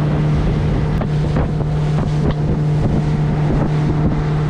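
Outboard motor running at a steady cruising speed as a small boat travels across the water, with wind buffeting the microphone.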